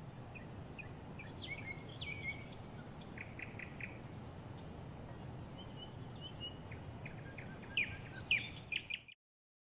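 Small birds chirping, short scattered calls and trills, over a steady low background rumble. A few louder chirps come near the end, and then it all cuts off abruptly.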